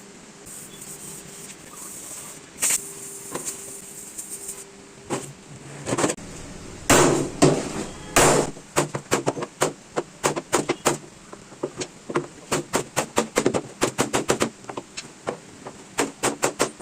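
A hammer tapping on a car body panel, a few single strikes and then quick runs of sharp taps, several a second, as a dent is worked out in paintless dent repair.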